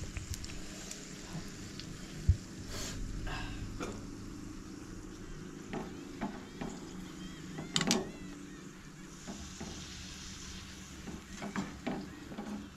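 A banana bun deep-frying in hot oil with a steady sizzle. A wire spider skimmer moves in the oil and knocks against the metal kadai with a few sharp clicks, the loudest about eight seconds in.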